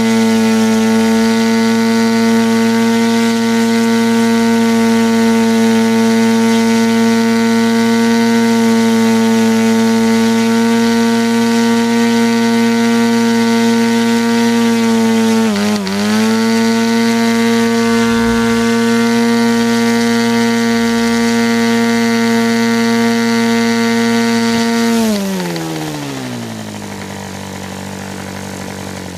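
Fox .50 two-stroke model engine, converted to diesel with a Davis head, running at high speed on a 14x6 APC propeller: a loud, steady buzz. About 16 seconds in its pitch briefly sags and recovers. About 25 seconds in it slows smoothly to a much lower, steady speed.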